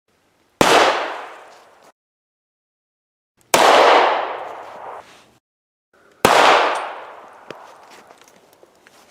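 Three single 9mm pistol shots about three seconds apart, each a sharp crack with a long echoing decay, the gaps between them dead silent. A few faint clicks sound in the tail of the last shot.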